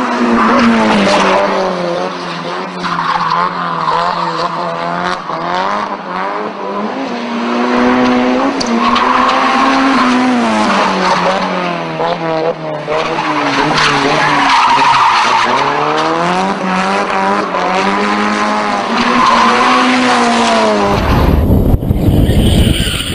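Drifting cars: engines revving up and down again and again while the tyres squeal and skid. Near the end the sound switches to a louder, low rumbling noise.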